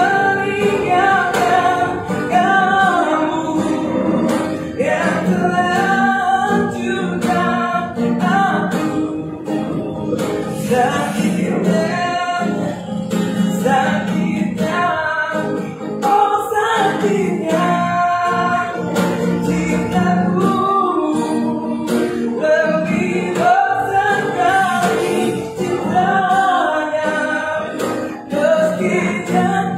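A man singing, accompanying himself on a strummed acoustic guitar.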